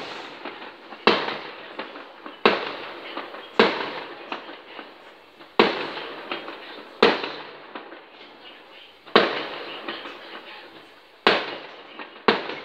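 Aerial firework shells bursting in the sky: about eight sharp bangs, one every one to two seconds, each dying away over a second or so.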